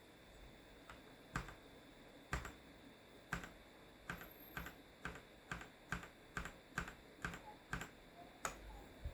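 Keys on an SPC Gear GK650K Omnis mechanical keyboard with Kailh switches, pressed one at a time in separate clicks: slowly at first, then about two presses a second.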